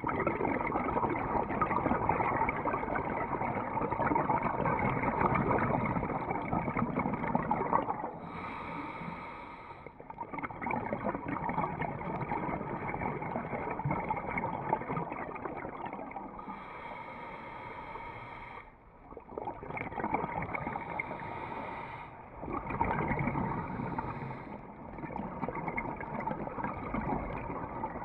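Scuba regulator breathing heard through a GoPro underwater housing: long rushes of exhaled bubbles alternating with a few short, hissing in-breaths through the regulator.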